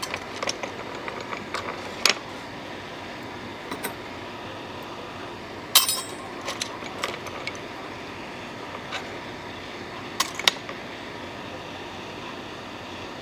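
Hot air rework gun blowing steadily over a phone circuit board, reflowing the solder under a reballed power IC. Scattered sharp metallic clicks and clinks sound over it, the loudest about six seconds in and two more near ten seconds.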